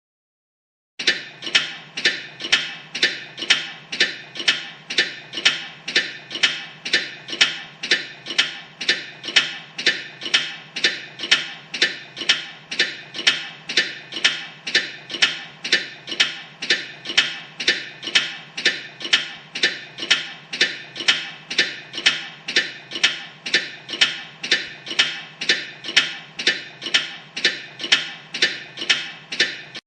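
Mechanical clock ticking steadily, about two ticks a second, each tick a sharp click with a short metallic ring. The ticking starts about a second in.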